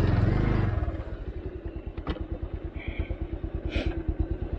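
Single-cylinder motorcycle engine coming off a rev in the first second and falling to a steady, even idle, with two sharp clicks partway through.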